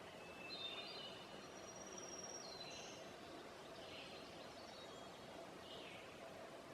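Songbirds singing and calling faintly: thin high whistled notes and short down-slurred chirps, several in succession, over a steady low background hum.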